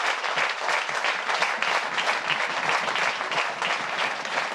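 Theatre audience applauding: a dense, steady round of clapping from many hands.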